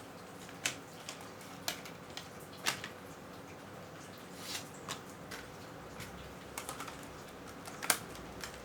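Irregular light clicks and taps of PC component boxes and plastic packaging being handled during unboxing, the loudest one near the end.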